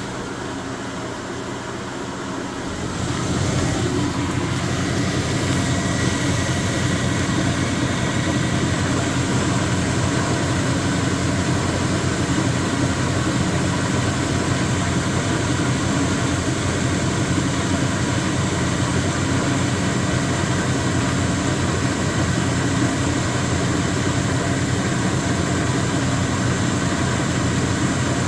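Speed Queen TR-series top-load washer running with a loud clunking noise. The noise grows louder about three seconds in and then holds steady. The clunking comes from play in the drive pulley, whose nut has loosened on the shaft.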